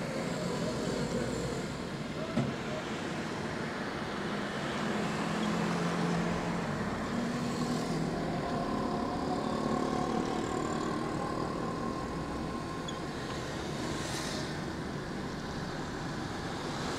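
Road traffic heard from inside a moving car: a steady engine and road hum, with a bus's engine swelling in the middle as it pulls ahead. A single sharp click about two and a half seconds in.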